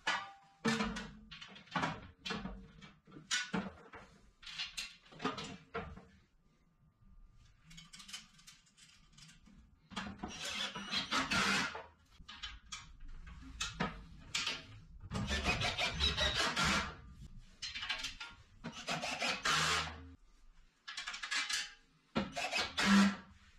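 Sheet-steel stand parts being handled and fitted together: irregular scraping, rubbing and knocking of the metal pieces, with a quieter pause partway through and a louder knock near the end.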